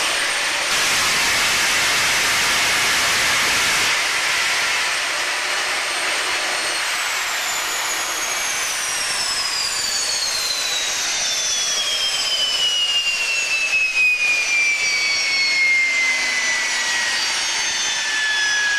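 Palouste gas turbine of a jet motorcycle running with a loud rushing roar that drops away about four seconds in. Its high whine then falls steadily in pitch as the turbine spools down.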